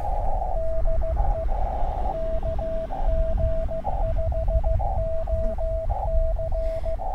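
Morse code (CW) from an Elecraft KX2 ham radio transceiver: a single mid-pitched tone keyed on and off in dots and dashes, with narrowly filtered band hiss filling the gaps between characters.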